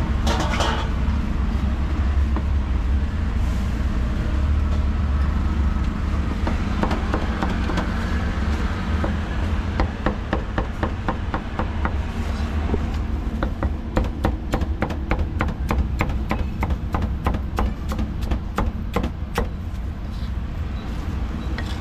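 Meat cleaver chopping roast duck on a thick round wooden chopping block: a run of quick, sharp knocks, several a second, thickest in the second half. Under it runs a steady low rumble of street traffic.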